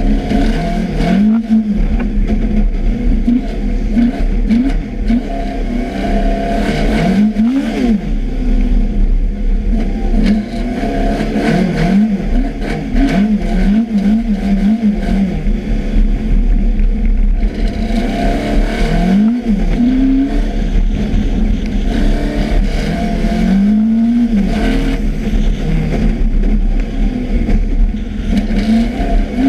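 Rally car engine under hard driving on a loose-surface test track, revving up and dropping back again and again as the driver works the throttle and gears.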